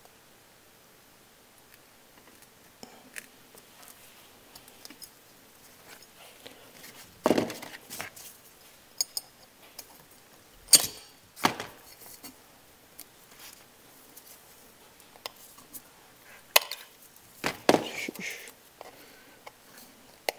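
Small metal parts of a wood boiler's air damper and stepper motor clicking, knocking and rattling as they are handled and fitted together by hand on a workbench. The knocks come on and off, with the loudest groups about seven, eleven and seventeen seconds in.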